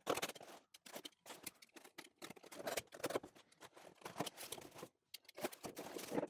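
Quiet scratching and scraping of a utility knife slicing through packing tape on a cardboard box, mixed with irregular rustles and taps of the cardboard as the box is handled and turned.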